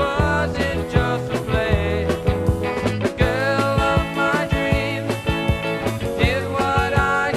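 Early-1970s pop-rock record played from vinyl: a sung melody over a band with a steady drum beat and bass.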